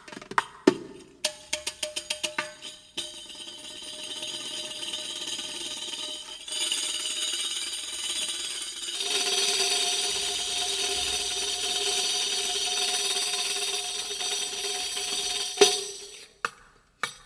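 Riq (Arabic frame tambourine) played by hand: a run of quick finger strikes on the head, then a long sustained roll of its metal jingles that swells louder about six and nine seconds in, broken off by a sharp strike and a few more strikes near the end.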